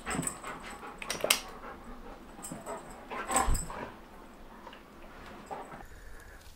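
Pet dogs playing: a string of short dog noises and scuffles, the loudest about a second and a half in.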